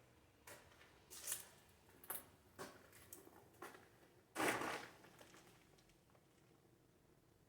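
Faint, irregular scuffs and rustles from someone moving about, with a louder brief scrape about four and a half seconds in.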